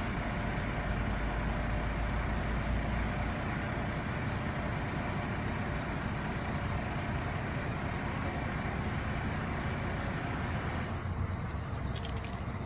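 Truck engine running steadily to drive the hydraulic system of a Palfinger PK 54000 G truck-mounted loader crane as the crane lifts and swings a load, a continuous mechanical drone.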